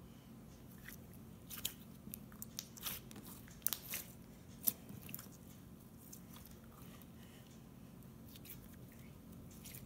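Clear slime being stretched and pressed by hand, giving off a scatter of small sharp pops and clicks, bunched between about one and a half and five seconds in, with the loudest pop near five seconds.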